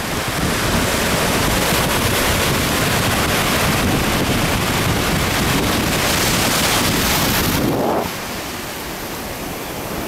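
Pacific Ocean surf breaking over rocks and washing foam up the sand, a steady rushing wash, with wind buffeting the microphone in a low rumble. It eases and grows quieter about eight seconds in.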